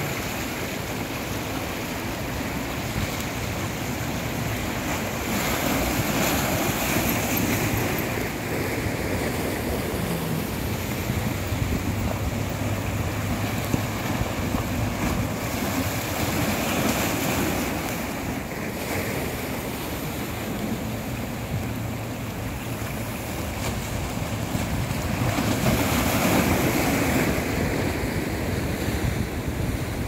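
Small ocean waves washing and splashing against shoreline rocks, swelling louder every several seconds, with wind buffeting the microphone.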